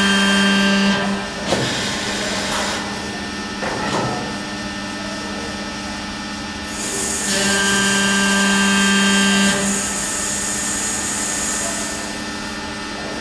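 HERBER 127 CNC tube bending machine working through a bend cycle: a steady machine whine that stops about a second in and comes back about seven seconds in, two metallic clanks near the start, and a loud hiss lasting several seconds in the second half.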